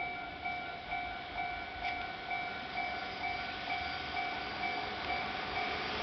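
Japanese level crossing warning bell ringing a steady ding-ding, a little over two strikes a second.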